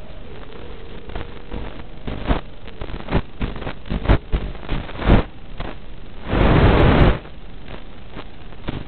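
Hiss and rushing noise on the audio of the FPV quadcopter's analog video link, broken by irregular short loud gusts. A louder burst of rushing noise lasts about a second, a little past three-quarters of the way through.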